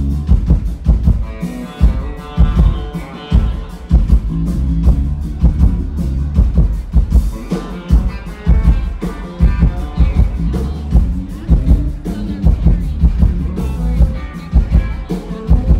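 Live band playing loudly, an instrumental passage driven by a drum kit with electric guitar over a steady beat.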